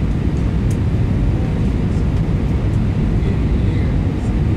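Airliner cabin noise in flight: a steady low rumble from the engines and the air rushing past the fuselage, heard from inside the passenger cabin.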